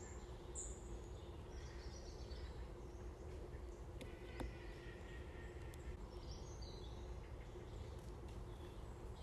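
Faint birds chirping and calling over a steady low rumble of outdoor background noise, with a single light click about four seconds in.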